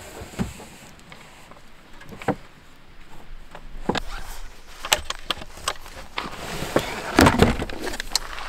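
Irregular knocks, clicks and rustling of things being handled, loudest in a cluster about seven seconds in.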